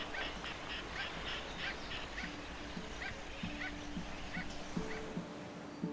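A flock of seabirds calling: short, sharp calls several a second at first, then thinning out, over a steady wash of background noise. About two seconds in, soft music of plucked notes comes in underneath.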